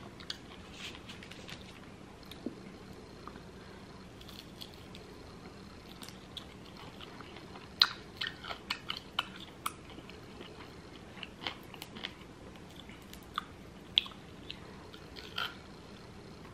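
Close-miked eating of lemon pepper chicken wings: chewing and biting, with scattered sharp crunches and clicks, most of them about eight seconds in as a wing is pulled apart.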